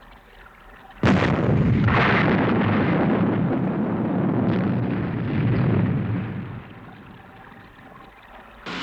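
Explosion sound effect: a sudden loud blast about a second in, then a rumble that lasts several seconds and dies away. This is the enemy craft being destroyed by the Sting missile.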